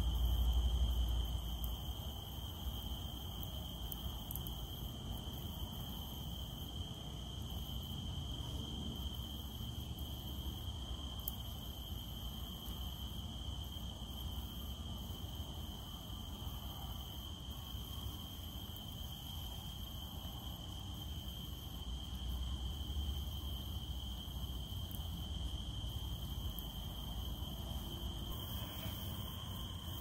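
Cicadas droning: one steady, unbroken high-pitched note that holds level throughout. Beneath it is a low background rumble that is louder at the start, fades within the first two seconds, and swells again a little past two-thirds of the way through.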